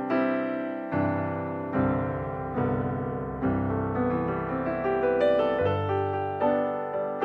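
Background piano music: notes and chords struck at a slow, even pace, about one every 0.8 seconds, each ringing and fading.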